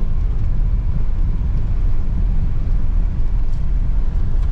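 A car driving along: a steady low rumble of engine and road noise.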